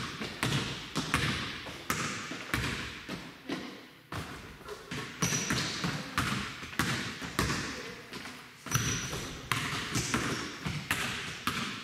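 Basketballs being dribbled on a hardwood gym floor: a rapid, uneven run of bounces with echo from the hall, pausing briefly twice, with a few brief high squeaks.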